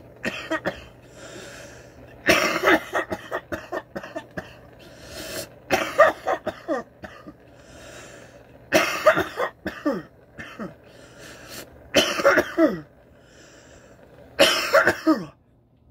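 A man coughing in repeated hard fits, about five bouts a few seconds apart, from inhaling cannabis wax smoke.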